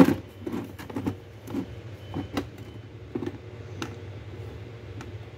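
Plastic roll-on wax cartridges being set upright on a shelf, a string of short light clicks and knocks as they are put down and tap against each other, the loudest right at the start.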